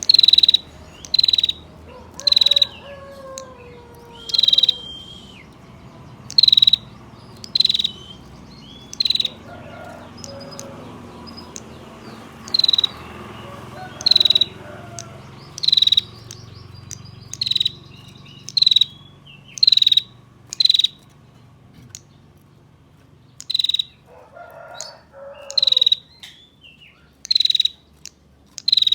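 Female prenjak tamu (bar-winged prinia) giving its harsh 'ngetir' call: about twenty short, sharp, high notes, roughly one a second, with two brief pauses. Fainter calls from other birds or insects sit underneath.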